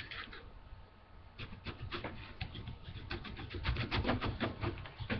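Pocket knife scraping and prying at a hardened hot glue blob on a tabletop, a run of small scratchy clicks that comes thicker after about a second and a half.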